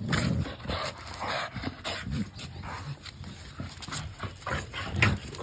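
Two bully-breed dogs wrestling, with short, irregular dog vocal noises and breaths coming in bursts as they tussle.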